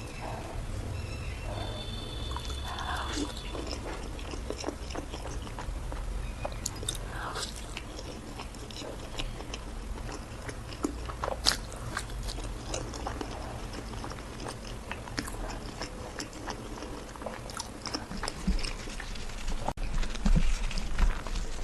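Close-miked chewing and biting of paratha flatbread, with irregular sharp mouth clicks and smacks. A brief high-pitched tone sounds about two seconds in.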